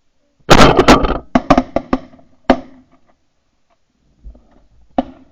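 A burst of loud, sharp knocks and clatter about half a second in, followed by several single sharp knocks over the next second and a half and one more near the end.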